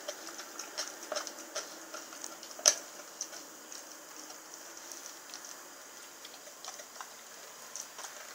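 Rottweiler gnawing a raw lamb shank: irregular wet clicks and crunches of teeth on meat and bone, with one sharp crack about two and a half seconds in. The chewing thins out in the second half.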